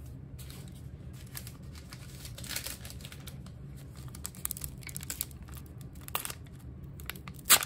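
Trading-card pack wrapper being crinkled and torn open, an irregular run of crackles with one loud sharp crack near the end.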